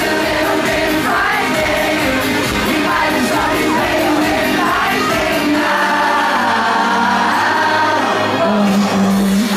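Live pop song from a male vocal group, singing over a band and a steady beat, with the crowd shouting along in the hall. About six seconds in the drums drop out and a held chord carries on under the voices.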